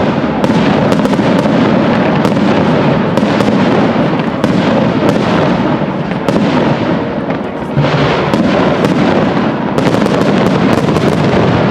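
Fireworks display: aerial shells bursting one after another over a continuous rumble, with many sharp cracks and a rapid cluster of crackling about ten seconds in.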